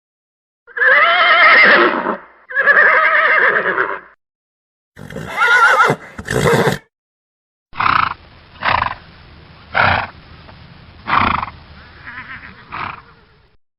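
Horse neighing: two long whinnies with a wavering, shaking pitch, then a shorter pair of calls, then a run of short calls about one a second.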